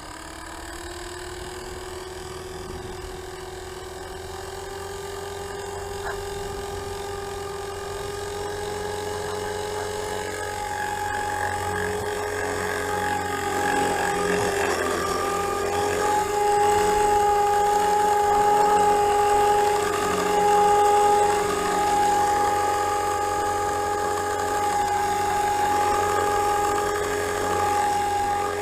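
Forza 450 RC helicopter spooling up: a whine that rises in pitch over the first few seconds, then holds steady and grows louder as the rotor comes up to speed. The rotor spin carries an abnormal noise, which the owner traced to a partly stripped main gear.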